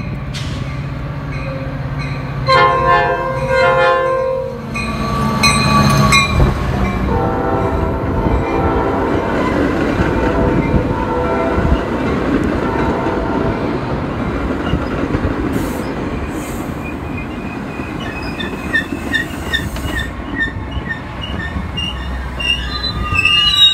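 Metra diesel commuter train sounding its horn in several short blasts in the first few seconds as it approaches, then passing close by with a steady rumble and wheel clatter from its stainless bilevel cars.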